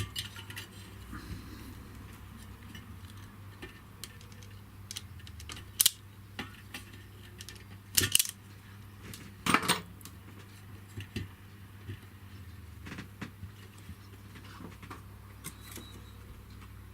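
Small metal parts and hand tools clicking and clattering as a wire is fitted to a switch terminal: scattered sharp clicks, the loudest about six, eight and nine and a half seconds in.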